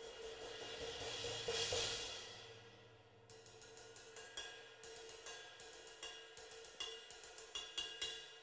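Zultan Heritage cymbal played on its own with sticks: a wash that swells to a peak just before two seconds in and dies away by about three seconds. Then a steady pattern of stick strokes follows, about three to four a second.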